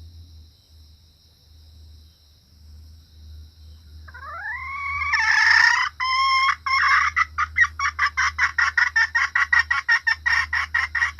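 Junglefowl hen calling. About four seconds in come rising calls and a loud squawk, followed by a rapid run of repeated clucking notes, about four a second.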